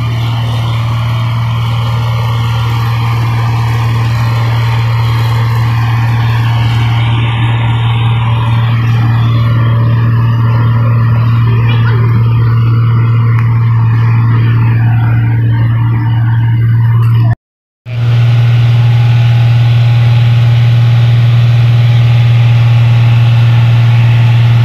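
New Holland combine harvester's diesel engine running loudly and steadily with a constant low hum as the machine moves. The sound drops out completely for a split second about two-thirds of the way through, then the same hum resumes.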